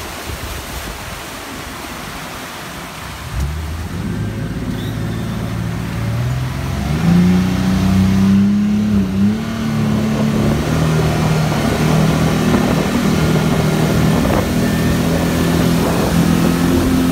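Tour boat's engine throttling up about three seconds in, its pitch climbing for several seconds, then running steadily at speed, over a rush of wind and water.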